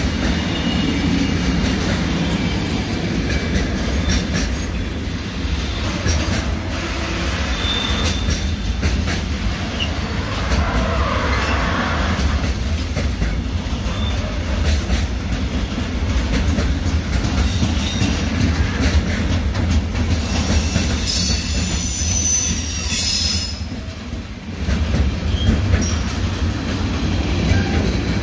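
Freight train wagons rolling past, a steady low rumble with wheels clattering over rail joints. High-pitched wheel squeal sounds near the start and again about three quarters of the way through.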